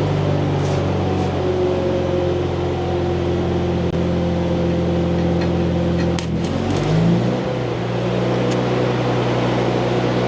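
Engine-driven stick welder running with a steady drone; its engine note shifts about seven seconds in. A few sharp clicks and crackles come just before that, as the electrode is scratched to strike an arc.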